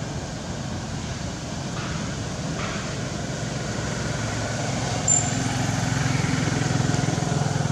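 A motor vehicle's engine running steadily with a low pulsing rumble, growing louder from about four seconds in as if it is drawing nearer. A brief, sharp, high-pitched chirp stands out about five seconds in.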